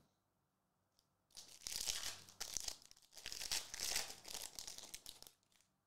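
Foil trading-card pack wrapper being torn open and crinkled by hand: a crackling rustle that starts about a second in and lasts about four seconds, with two brief pauses.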